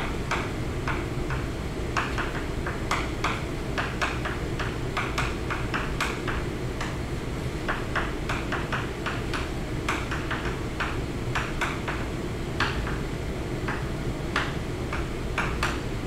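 Chalk writing on a blackboard: quick, irregular taps and short scratchy strokes, several a second, as letters are written, over a steady low hum.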